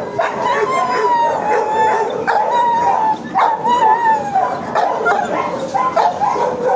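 A dog howling in long, wavering calls, with other dogs barking around it. The uploader takes the howl for discontent at the surrounding noise.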